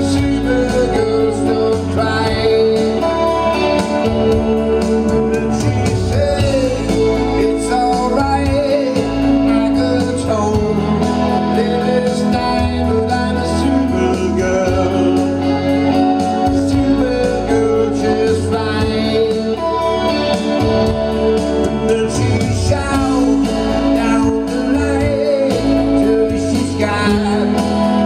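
A live pop-rock song: a man singing and playing electric guitar, with a steady bass line and keyboard-like accompaniment underneath.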